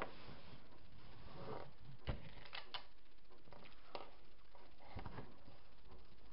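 Fabric being folded and pressed flat by hand on a table: soft handling rustle with a few light taps and clicks.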